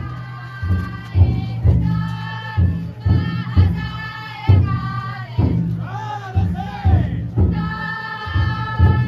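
Futon daiko float's drum beaten in a steady beat under the bearers' group chant-singing, the voices holding long notes with a few rising and falling calls.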